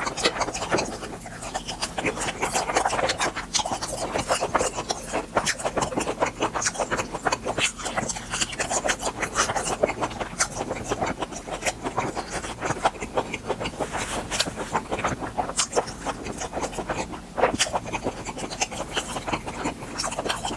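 Close-miked eating of grilled beef intestines: chewing with a continual run of mouth clicks and smacks.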